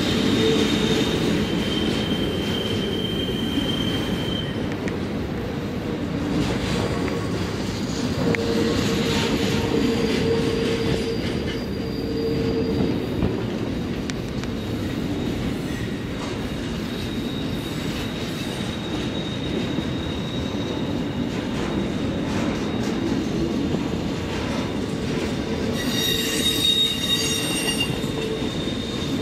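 Canadian National double-stack container freight train rolling through the tight curve of a rail cloverleaf, its wheels squealing against the rails over a steady rumble of passing cars. The shrill squeal grows stronger near the end.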